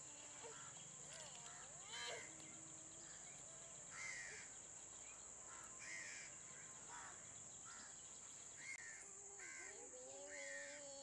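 Crows cawing repeatedly, a short harsh call every second or two, over a steady high-pitched drone.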